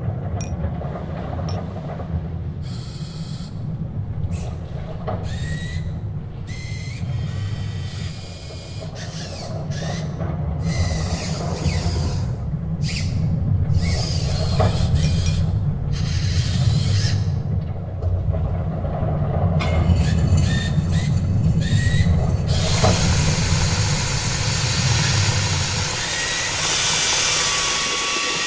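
Sound effects from an animated short film: a steady low rumble that slowly grows louder, with short mechanical whirs, squeaks and brief rising whines over it. A hissing wash comes in near the end and the rumble stops shortly before.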